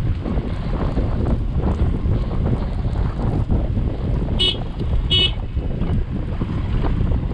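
Wind buffeting the microphone over the low rumble of a motorcycle riding a rough gravel mountain road. About four and a half seconds in, a horn gives two short toots less than a second apart.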